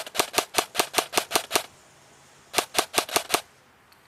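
Airsoft rifle firing a string of quick single shots, about five a second and roughly nine in all. After a pause of about a second comes a faster burst of about six more shots.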